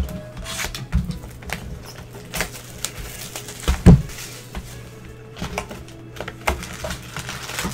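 Cardboard Donruss football card box and its wrapped packs being handled: irregular taps, clicks and rustles, with one louder thump about four seconds in. Background music plays underneath.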